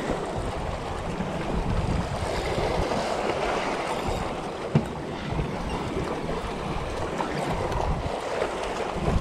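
Sea water washing and splashing against shoreline rocks, with wind on the microphone; one short knock about halfway through.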